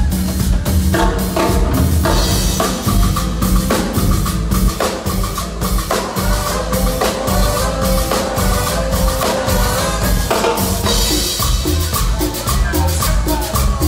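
Live Latin dance band playing an up-tempo number: congas and drum kit keep a steady driving beat, with sustained melodic lines over it in the middle.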